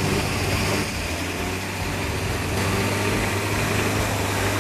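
Land Rover Series II engine running steadily as the vehicle wades through deep muddy water, with water churning and splashing around the wheels.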